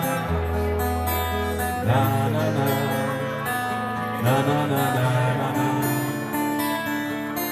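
Instrumental break of a song: amplified acoustic guitar strummed and picked, with held bass notes underneath and chords struck about two and four seconds in.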